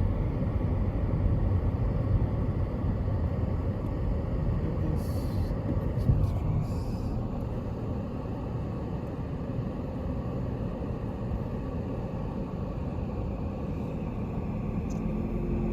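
Steady low rumble of a car on the road, heard from inside the cabin, with a few brief clicks about five to seven seconds in.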